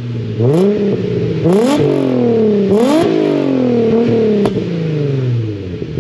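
Car engine with an aftermarket ISR 3-inch cat-back exhaust, revved from idle in three quick blips. Each one rises fast and falls back slowly, and the engine settles to idle near the end. A single sharp crack comes about four and a half seconds in as the revs drop.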